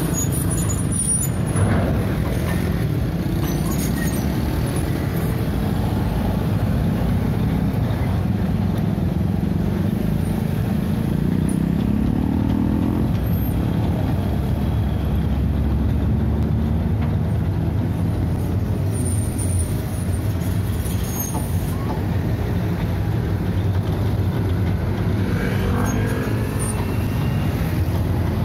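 Hitachi EX130 amphibious excavator's diesel engine running steadily as the machine travels on its pontoon tracks, its pitch rising about halfway through as it revs up.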